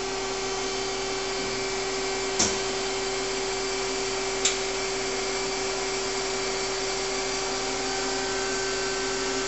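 Daewoo Puma 6G CNC lathe powered up with its spindle stopped, giving a steady machine hum with one steady tone. Two sharp clicks come about two and a half and four and a half seconds in.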